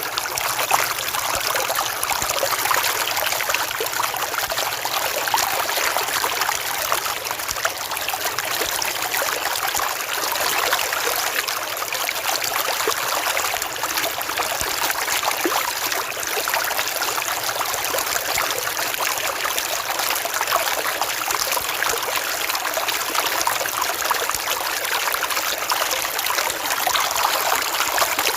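River water flowing and trickling over stones, a steady rush with fine splashing and babbling.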